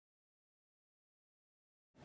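Silence, with a broad noise just beginning to swell in at the very end.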